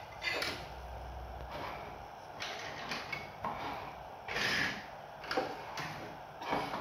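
Plastic toy vehicles being slid across and set down on a tabletop: a series of short scrapes and light knocks, the longest scrape about four and a half seconds in.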